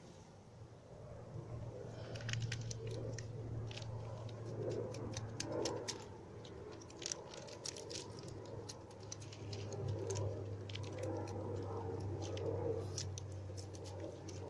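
An aircraft passing overhead, a steady low drone that swells and fades twice. Light clicks and rattles of small things being handled close by are heard over it from about two seconds in.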